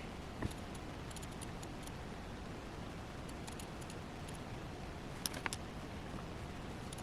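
Low steady room noise with a few faint light clicks, one about half a second in and two close together around five and a half seconds in.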